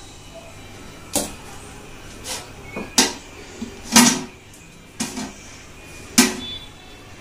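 Metal lid and pot-holder tongs clinking and knocking against a large metal pot as the lid is set on and adjusted. There are seven or eight sharp metallic knocks spread over several seconds, the loudest about three and four seconds in.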